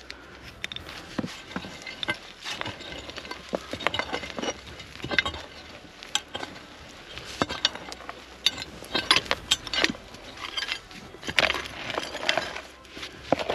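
Metal hand digging tools scraping and striking dry, stony soil, with stones clinking against the metal and loose dirt rattling in irregular knocks and scrapes.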